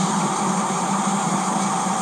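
N-scale model freight train running past close by: a steady hum from the locomotive's small motor over the rattle of wheels on the track.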